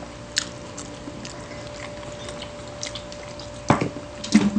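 Small mouth and liquid sounds with a few faint clicks. About three and a half seconds in, a glass jar is set down on the wooden table with a sharp knock, and near the end water is gulped from a glass. A faint steady hum runs underneath.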